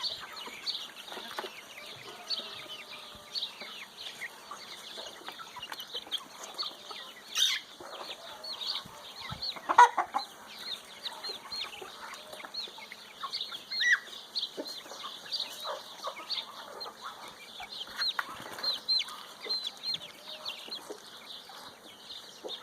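Domestic chickens clucking and peeping while they feed, with many short high peeps throughout and a sharper, louder sound about ten seconds in.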